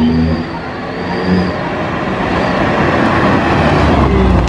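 Volkswagen Polo driving past close by with its engine revving, and a thin high whistle from a small whistle fitted in its exhaust, which comes and goes. The engine and road noise swell as the car passes.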